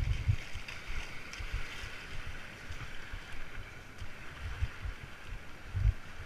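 Small waves washing over sand and rocks at the water's edge, a steady hissing wash. It is broken by irregular low thumps of wind buffeting the microphone, strongest at the start and near the end.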